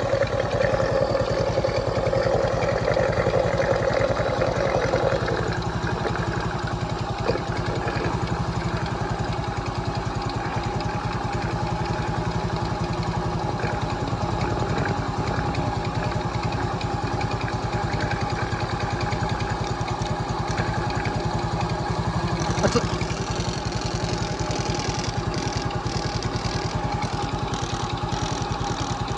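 Motorcycle engine idling steadily with its tappet caps removed, opened up to hunt for an abnormal noise from the valve gear. A single sharp clack is heard about two-thirds of the way through.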